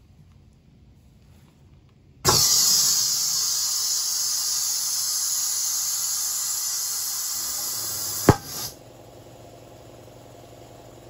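Compressed air from an air-compressor line hissing loudly into a paint-filled rubber balloon for about six seconds, starting about two seconds in, ending in a single sharp pop as the balloon bursts.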